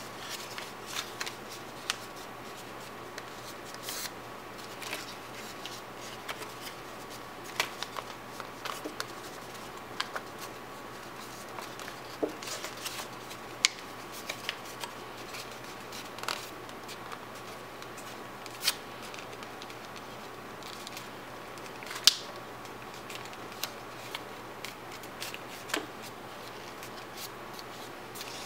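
Sheet of paper being folded and creased by hand: irregular crisp crinkles and sharp clicks of the paper, a few of them louder, over a faint steady hiss and hum.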